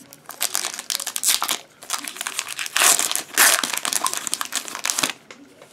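Foil wrapper of a Pokémon Team Up booster pack crinkling and tearing as it is opened by hand, in irregular crackles with a few louder rips in the middle. The crackling stops about five seconds in.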